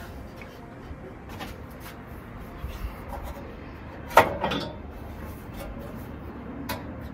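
A single sharp metallic clank with a brief ring about four seconds in, as things are handled at a Weber grill with its lid open, with a few light clicks before it over a low steady background rumble.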